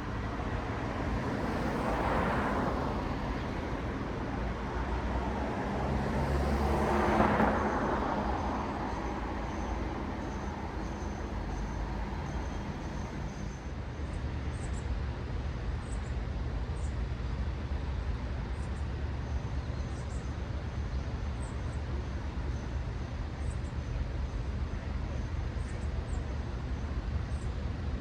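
Road traffic: two cars pass one after another, about two and seven seconds in, each swelling and fading. A steady low traffic rumble continues beneath them, with a few faint high chirps in the second half.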